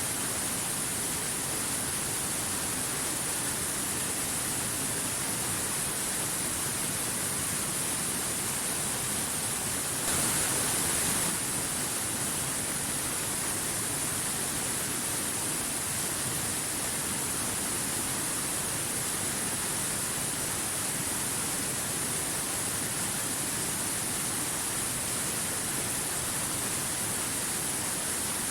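Stream water rushing and splashing over rocks, a steady, even rush of white water that grows briefly louder for about a second around ten seconds in.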